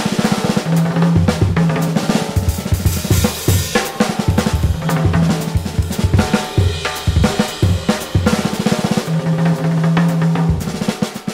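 Drum kit played with wooden sticks, thicker-diameter Pro-Mark Select Balance sticks that give a bit more sound: fast strokes across snare, toms and bass drum with cymbals, a low tom ringing out in several stretches.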